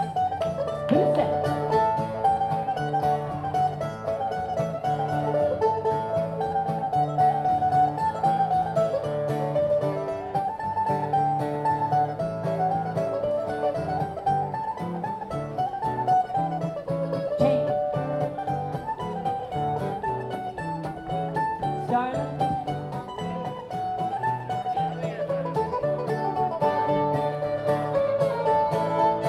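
Live contra dance band playing a dance tune, with a lively melody over a steady, pulsing accompaniment that keeps the beat for the dancers.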